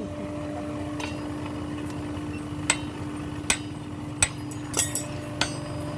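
Blacksmith's hammer striking metal in single, irregular blows, spaced a second or so apart at first and quicker near the end. A steady low hum runs underneath.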